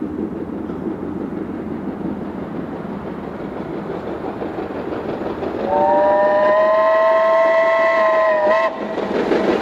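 Train approaching through the station with a steady rumble, then the locomotive whistle sounds for about three seconds, a chord of several tones that rises slightly at the start and cuts off sharply.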